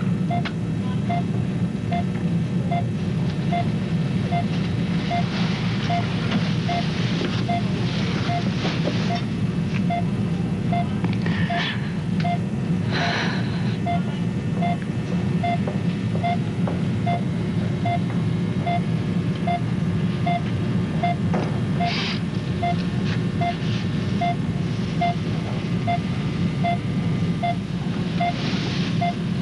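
Hospital heart monitor beeping steadily about once a second, over a constant low hum.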